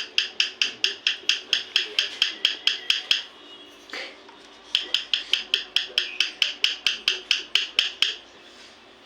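A parrot giving a rapid run of short, harsh calls at about five a second. It breaks off about three seconds in and starts a second run of about three seconds soon after.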